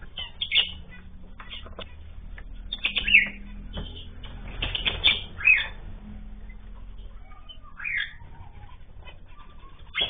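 Small cage birds in an aviary fluttering their wings, with scattered clicks and a few short falling chirps, over a steady low hum.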